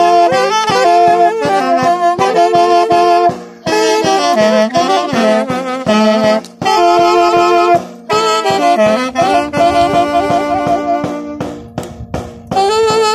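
Two saxophones playing a traditional Andean herranza tune in parallel harmony, with a small tinya hand drum struck with a stick keeping a steady beat. The melody stops for short breaks between phrases.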